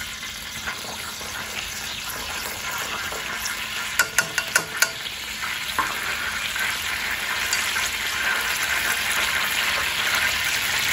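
Cooking oil heating in an aluminium pot on a portable gas stove, with wooden chopsticks held in it to test the heat: a steady sizzle that grows louder as the oil gets hot. A quick run of sharp clicks about four seconds in.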